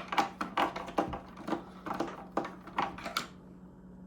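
A makeshift T15 Torx driver turning screws out of a Macintosh 128's plastic case: a run of short clicks and scrapes, about two or three a second, that stops about three seconds in.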